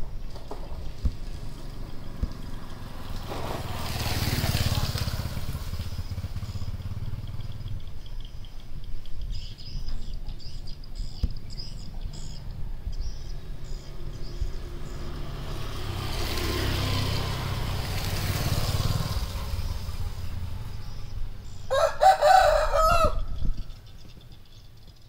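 A rooster crows once near the end: a loud, wavering call of about a second and a half. Before it, a low rumble swells and fades twice.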